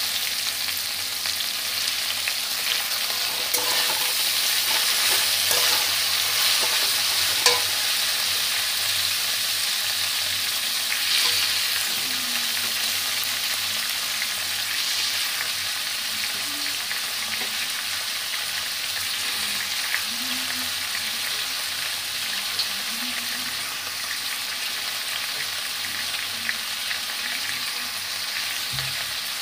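Cabbage, capsicum and carrot sizzling in hot oil in a kadai while being stir-fried, the flat spatula scraping and clicking against the pan now and then.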